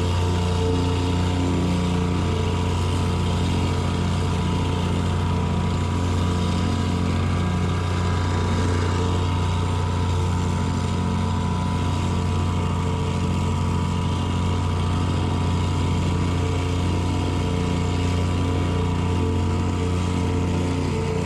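An engine running at a steady speed throughout, with a strong low hum, as powered equipment works stone dust into a compacted floor.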